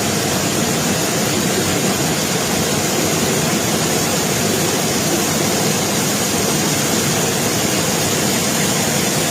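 Loud, steady rushing of water, an unbroken roar of noise.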